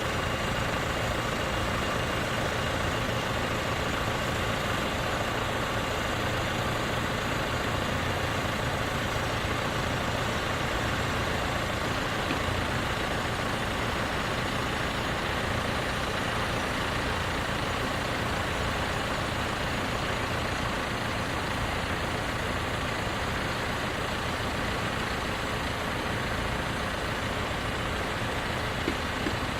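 Tractor engine running steadily, a constant low rumble.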